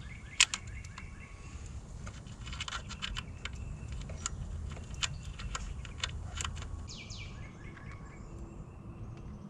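Irregular light clicks and taps of hand tools on metal as a small bracket is worked loose in a car's engine bay, with birds chirping faintly in the background.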